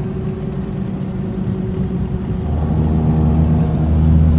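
A motor vehicle running: a low road rumble, joined about halfway through by a steady low engine hum that grows louder.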